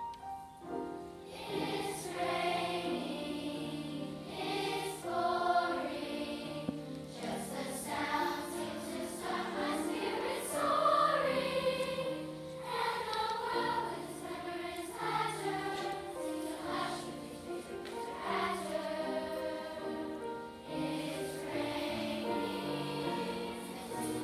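A large mixed choir of children and adults singing, with piano accompaniment.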